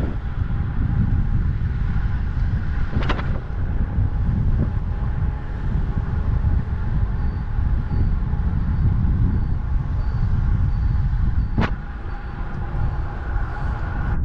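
Wind buffeting a bike-mounted action camera's microphone while riding at about 40 km/h, a steady low rumble mixed with road traffic noise. Two sharp clicks, about three seconds in and near the end.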